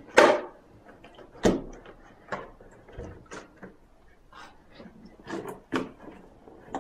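Large empty plastic water bottle knocked and set down on a carpeted floor by a baby: a string of irregular plastic knocks and crackles, the loudest just after the start and again about a second and a half in.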